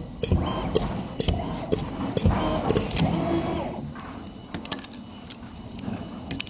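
A cutting machine working, with irregular sharp clicks and knocks over a low rumble and a faint whine now and then.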